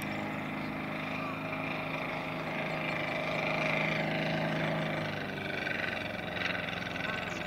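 Half-scale RC de Havilland Tiger Moth's 384cc twin inline petrol engine running steadily in flight as the model passes, growing louder about halfway through, then dropping a little in pitch and level as it flies away.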